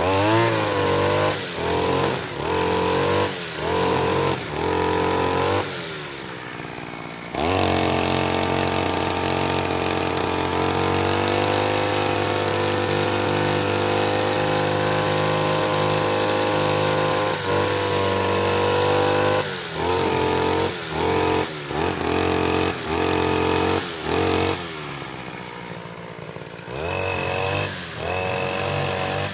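Grass trimmer cutting grass, revved in about five short bursts, then held at high speed for about twelve seconds from around seven seconds in, then revved in short bursts again near the end.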